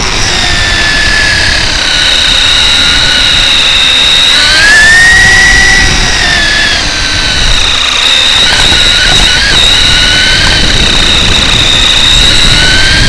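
Hobbywing 2200kV sensored brushless motor and pinion/spur gearing of a Traxxas E-Revo 1/10 RC truck, whining steadily under throttle, heard from on board. The whine rises in pitch about four seconds in and eases back down around seven seconds, over a low rumble.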